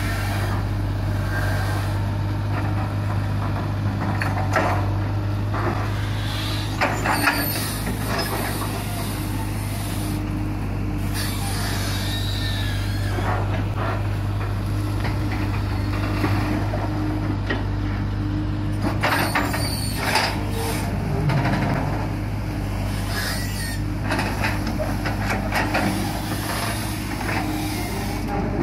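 Long-reach crawler excavator's diesel engine running steadily under load with a low drone, while its hydraulic arm works the bucket through mud and silt in a drainage ditch, giving intermittent knocks, clanks and scrapes.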